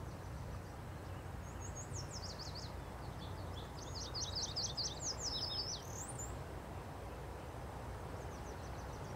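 A songbird singing rapid runs of short falling high notes, from about a second and a half in until about six seconds in, with a fainter snatch near the end. Under it is a steady low outdoor rumble.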